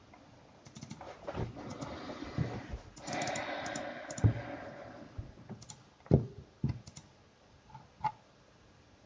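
Scattered clicks and taps on a computer keyboard and mouse, with a few louder knocks about halfway through.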